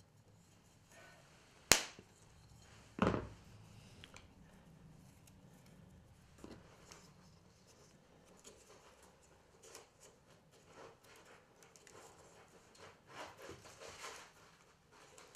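A rubber band snapping sharply twice against a bamboo rod as it is stretched around a joint, about two and three seconds in, the second with a dull knock; after that only faint handling rustles and small clicks as it is wound on.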